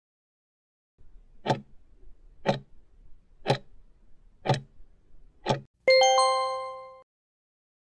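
Countdown-timer sound effect: a clock ticking once a second, five ticks, then a bell-like chime as the timer hits zero, ringing out and fading over about a second.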